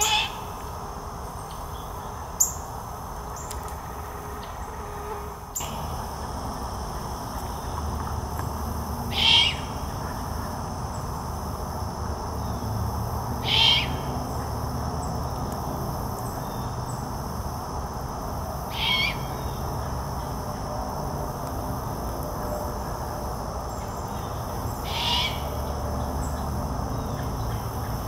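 Juvenile great horned owl giving its hoarse, screeching begging call about five times, several seconds apart: the call a young owl uses to ask its parents for food.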